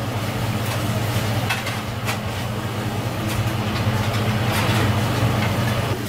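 Steady low machine hum, with a few light clicks and clinks scattered through it.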